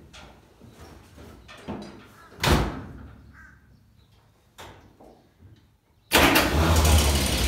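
The steel cab door of a 1936 Chevrolet truck slams shut about two and a half seconds in. About six seconds in the long-dormant engine starts suddenly and runs loud and steady with a fast, even beat.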